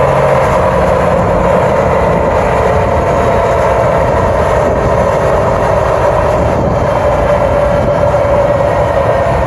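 A 2004 Cummins 5.9-litre inline-six turbo diesel with a 5-inch straight-pipe exhaust, running loud and steady under load on a chassis dyno. Its drone climbs slowly in pitch as the revs build, mixed with the noise of the tyres on the rollers.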